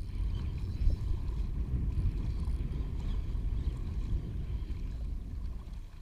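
Water sloshing around a wader's legs, a low steady rumble with a louder bump about a second in.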